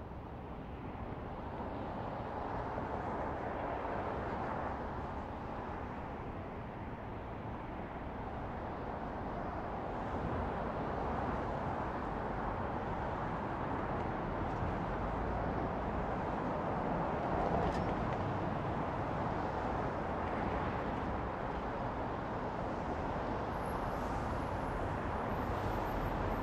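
City ambience of distant road traffic: a steady wash of noise that swells and eases slowly as vehicles pass, with one faint short high squeak about two-thirds of the way through.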